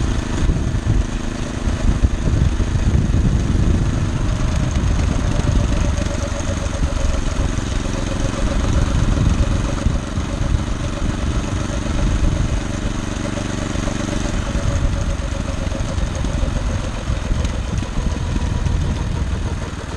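Small engine of a homemade motorized rail cart running steadily as the cart travels along the track.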